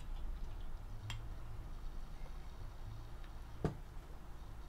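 The end of a beer pour into a glass mug, then a low hum with two light clicks from the glass and bottle being handled, the sharper one about three and a half seconds in.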